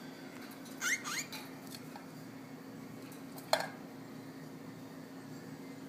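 Cockatiel giving two or three short rising chirps about a second in, then a single sharp click a couple of seconds later, over a steady low hum.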